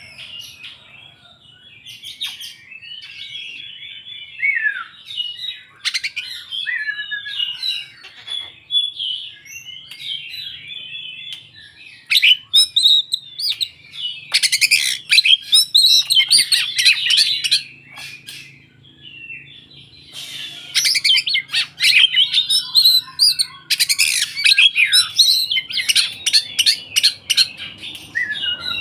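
Oriental magpie-robin (kacer) in full, energetic song: a long, varied run of whistles, sliding notes, chirps and harsh rattling phrases. It is loudest in two long stretches in the second half.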